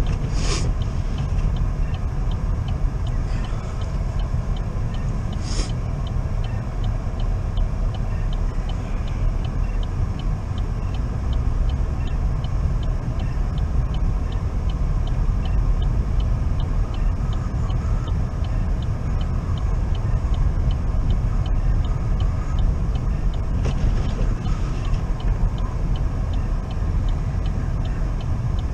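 Steady low rumble of a car's engine and tyres heard from inside the cabin at slow speed. A faint, even ticking runs through it, with a few brief hissing sweeps.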